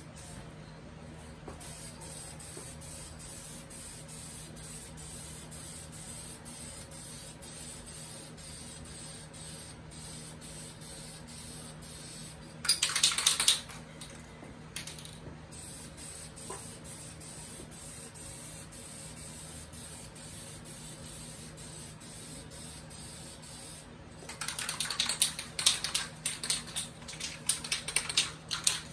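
Aerosol spray can hissing steadily as finish is sprayed onto the cabinet's wooden rails, with a much louder spray burst about 13 seconds in. Near the end comes a run of loud rattling clicks.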